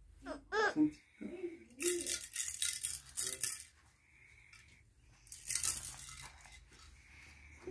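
A baby's plastic toy rattle shaken in two bursts, the first about two seconds in and the second near six seconds, after a brief vocal sound from the baby near the start.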